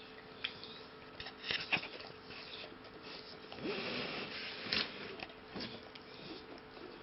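Dog nibbling at a person's bare heel with its front teeth, with wet mouth clicks and licking, and sniffing breaths through the nose. A few sharp clicks come about a second and a half in, and a longer stretch of noisy chewing and breathing comes around the middle.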